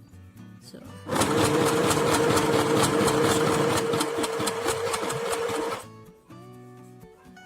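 Sew Simple FHSM 505 portable sewing machine stitching forward through T-shirt fabric under foot-pedal control: a steady motor hum with rapid needle strokes, starting about a second in and stopping near six seconds. Quiet background music plays underneath.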